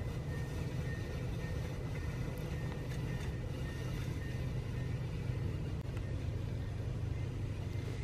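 Steady low rumble of a train running, with a thin, high-pitched squeal through the first half.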